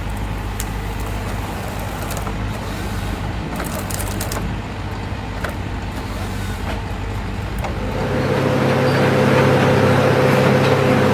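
Heavy machinery engine running steadily, with wood-working noise; about eight seconds in, the sound shifts to a louder, different machine drone.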